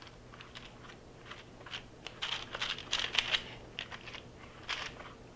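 A spoon spreading melted candy coating thick with crushed peppermint over wax paper on a metal baking sheet: a string of faint, quick scraping strokes, thickest about two to three and a half seconds in, with another near the end.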